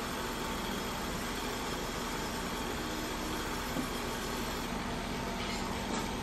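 Steady machine noise: an even hiss with a faint low hum, with a faint click near the end.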